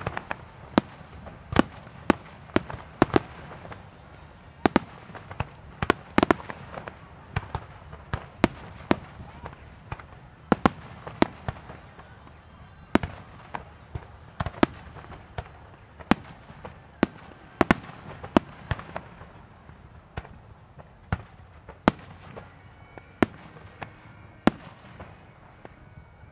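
Aerial fireworks shells bursting: an irregular string of sharp bangs, one or two a second, each trailing off in an echo. The bangs stop near the end.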